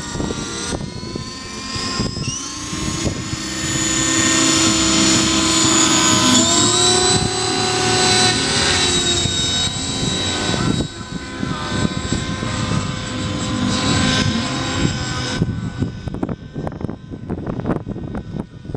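Electric radio-controlled helicopter flying: a steady whine from its motor and rotor, rising in pitch about two and six seconds in as it spools up and climbs. Near the end the whine thins out as it flies off, leaving an uneven low rumble.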